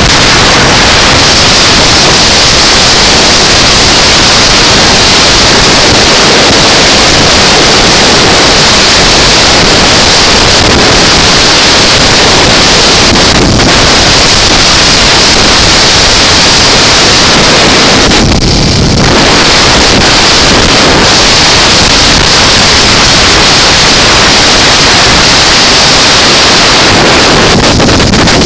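Loud, steady wind rush buffeting the microphone of a 2005 BMW F650CS motorcycle cruising at highway speed, mixed with the bike's running and road noise. It eases briefly about two-thirds of the way through.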